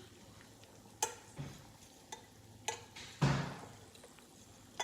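Chicken tenders frying in chicken fat (schmaltz), a faint steady sizzle, with a few sharp clicks of a utensil against the pan and one louder knock a little past three seconds in.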